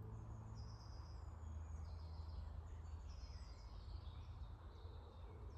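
Faint woodland songbirds singing short, thin, high-pitched notes, over a steady low rumble of wind or microphone noise.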